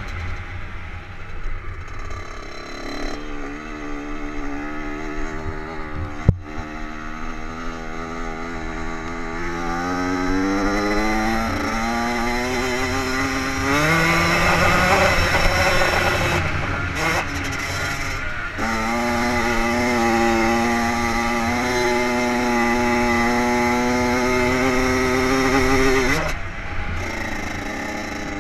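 Two-stroke dirt bike engine under hard throttle, its pitch climbing as it revs out and dropping back at each gear change. It then holds a steady high note until the throttle closes near the end. One sharp knock about six seconds in.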